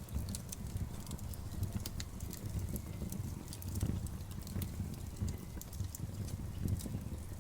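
Wood campfire burning, with irregular sharp crackles and pops over a low rumbling of the flames.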